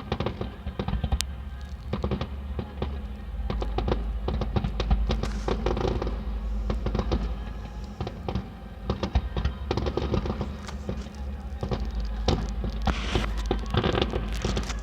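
Fireworks display going off: rapid crackling and popping throughout, over a continuous low booming rumble.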